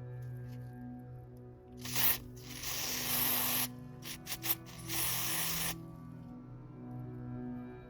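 Hissing spray in three bursts, the longest about a second, with a few sharp clicks between the last two, over background music.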